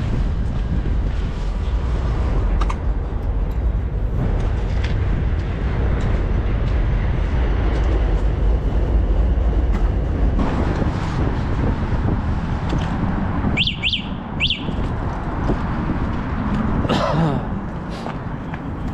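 Low rumble of wind on the microphone and passing street traffic, with two short high chirps about two-thirds of the way through.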